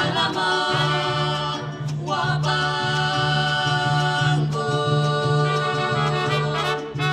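Mariachi music: several voices singing long held notes over a steady, pulsing bass beat.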